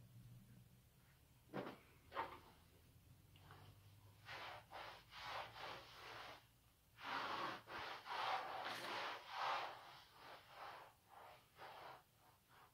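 Grey string mop swishing and rubbing across a wooden floor in repeated strokes, loudest in the middle, after two sharp knocks early on.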